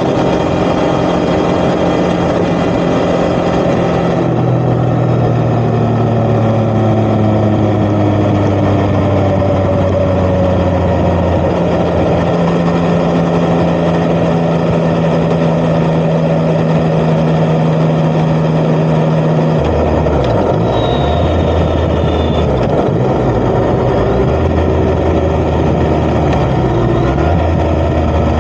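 Yamaha XSR900's inline-three engine through an Akrapovic titanium exhaust, its pitch falling as the bike slows from about four seconds in, holding steady, then dropping to a low, uneven idle-speed rumble about twenty seconds in before picking up again near the end. Steady wind and road noise runs underneath.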